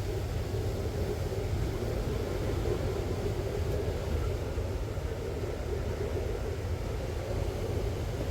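Strong wind buffeting the camera microphone while wingfoiling: a steady, heavy rumble with a hum above it.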